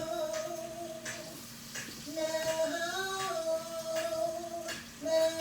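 A soul song playing: a woman's voice holds long sung notes over a steady beat of about two strokes a second.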